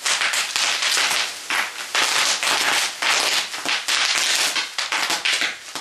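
Sheets of bubble wrap being popped by hand by three people at once: a dense, continuous run of overlapping sharp pops and crackles.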